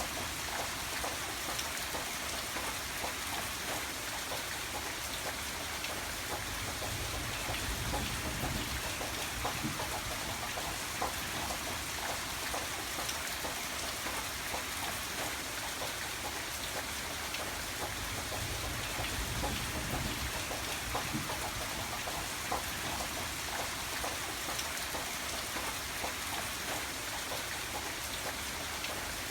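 Steady rain, with many close drops striking a surface as distinct ticks over an even hiss. A low rumble underneath swells a little twice, about a quarter and two thirds of the way through.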